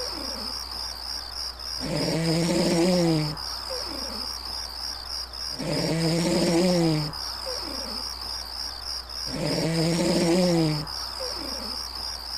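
Crickets chirping steadily and rapidly, with a loud, low, drawn-out animal call about every four seconds that drops in pitch at its end.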